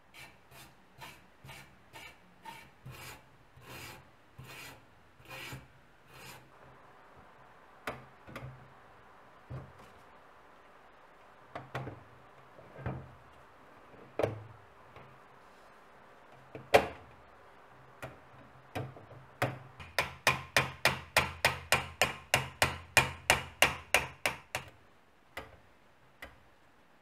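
A hand brush scrubbing the rusty galvanised sheet-metal body of an old carbide lantern in steady strokes, about two a second. Then come a few separate knocks as the lantern is handled, and near the end a faster, louder run of scrubbing strokes, three to four a second.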